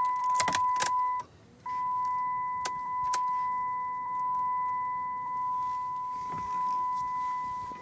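A steady, high-pitched electronic warning tone in a vehicle cab, cutting out for a moment about a second and a half in, with a few sharp clicks early on and around three seconds in.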